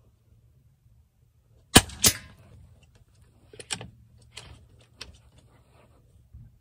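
Suppressed Daystate Alpha Wolf Safari HP .22 PCP air rifle firing once: a sharp crack about two seconds in, with a second sharp crack a third of a second after it. Then a few lighter clicks as the shooter works the action to load the next pellet.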